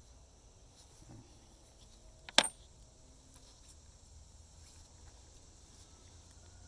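A single sharp metallic click about two and a half seconds in, over low steady background noise, during the refitting of the air filter housing's T20 screws.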